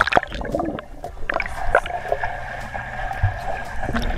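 Pool water splashing and sloshing against a camera held at the water's surface, with sharp knocks and gurgles as the water hits the camera, over a steady faint hum.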